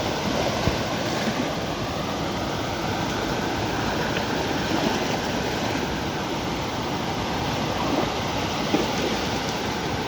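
A flood-swollen river rushing steadily, high after heavy rains. Two brief knocks sound over it, one about a second in and one near the end.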